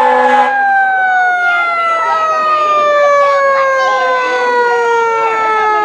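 Fire engine's siren winding down, one pitched wail whose pitch falls slowly and steadily the whole time. A steady horn blast cuts off about half a second in.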